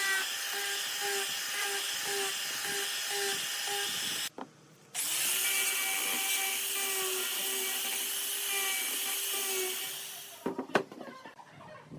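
Electric power tool working wood: its motor runs with a steady whine, cuts out briefly about a third of the way in, starts again, then winds down near the end. A few sharp knocks follow.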